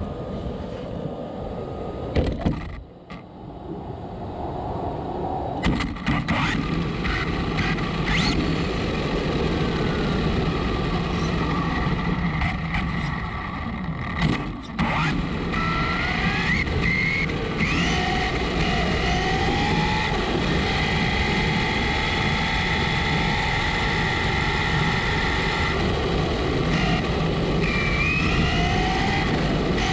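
Onboard sound of a Traxxas Slash RC truck on a 3S battery running over rough ground: steady drivetrain, tyre and wind noise, with the brushless motor's whine rising in pitch as it speeds up, around halfway and again near the end. A sharp knock about two seconds in, with a brief drop in level after it.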